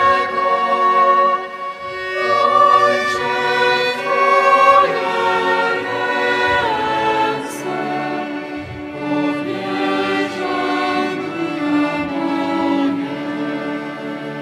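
Mixed four-part choir singing a slow, meditative Taizé chant with violins accompanying, in long held notes. The music grows quieter toward the end.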